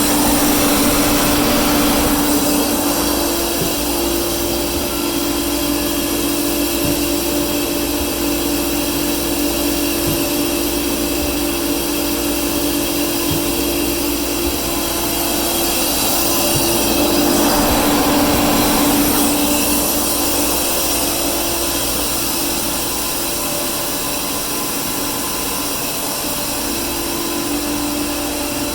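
Compair 30 HP rotary screw air compressor running with a steady hum, and a louder rush of air for a couple of seconds at the start and again about 17 seconds in, as it shifts between loading and unloading.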